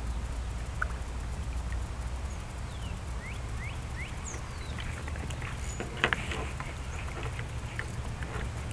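A bird calling, a run of four or five short rising whistles about a third of the way in, over a steady low rumble. From about five seconds in come scattered clicks and knocks, the loudest a sharp knock about six seconds in.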